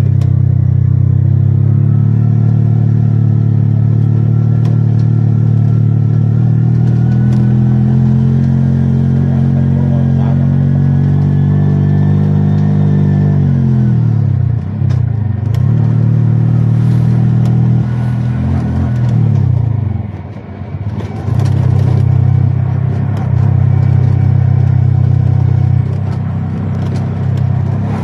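Vehicle engine running steadily on the road with road noise, its pitch falling twice as it slows, about halfway through and again about two-thirds through, then picking up again.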